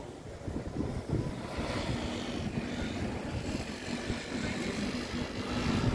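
Wind buffeting the microphone, with a steady distant engine hum that comes in about two seconds in.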